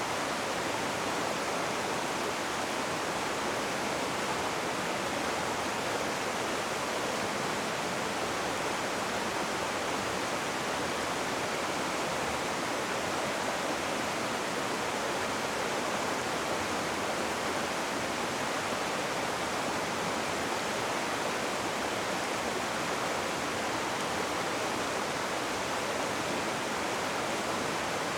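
Rushing river water: a steady, unbroken rush of flowing water with no distinct splashes or changes.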